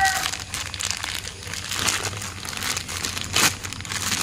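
Clear plastic bag crinkling and rustling as hands squeeze and knead a doughy bait mixture inside it, with a louder crackle about three and a half seconds in.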